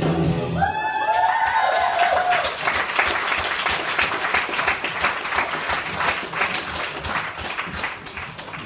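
Music stops about half a second in, and an audience breaks into whoops and cheers, then sustained applause that thins toward the end.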